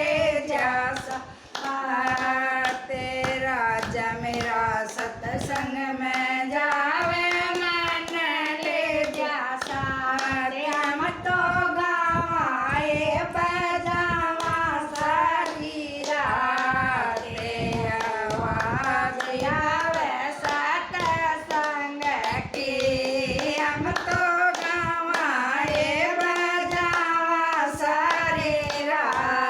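Haryanvi devotional bhajan sung by a woman's voice, with steady hand clapping keeping the beat.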